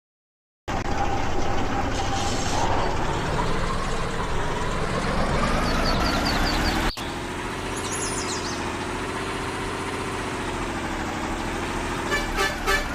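Motor vehicle engine running, its pitch rising over the first few seconds. It breaks off abruptly about seven seconds in and then runs on more steadily. Near the end a regular pulsing starts, about three beats a second.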